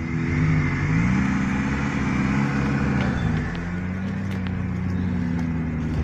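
Off-road vehicle's engine running under load, its pitch rising about a second in, dropping back a little after three seconds, then holding steady.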